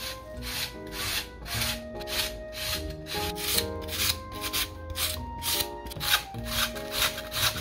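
Raw potato rubbed down a metal julienne grater in quick, regular rasping strokes, about two to three a second, over light background music.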